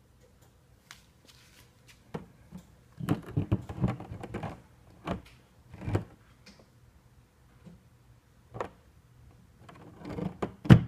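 Irregular knocks and clicks of metal fuel fittings and a fuel pressure regulator assembly being picked up and handled, in scattered clusters, with the loudest knock near the end.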